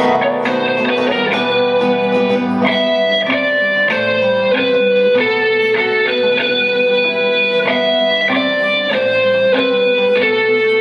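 Instrumental music: a guitar-led passage with sustained notes changing every half second or so, no vocals.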